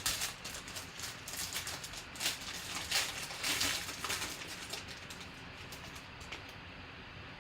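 Rustling, crinkling and clicking of a trading-card pack being opened and the cards handled, busiest over the first few seconds and then quieter.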